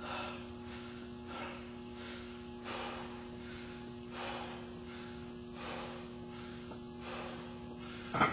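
A squatter breathing hard with a loaded barbell on his back, catching his breath between reps of a high-rep set: deep breaths about every second and a half. A short louder sound comes just before the end.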